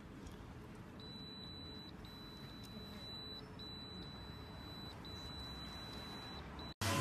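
Parking ticket machine beeping electronically: a high-pitched tone in a series of long beeps with short gaps, while its display asks for the card to be removed. The machine is faulty and does not accept the value card.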